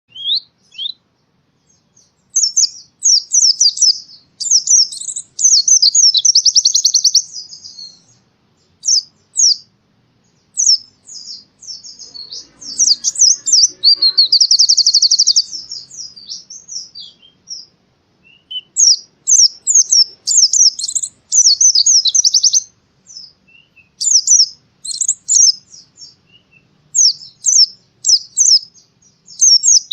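White-eye (pleci) singing: phrases of quick high chirps and twitters broken by short pauses, with two longer, very fast trills, one near a quarter of the way in and one near the middle.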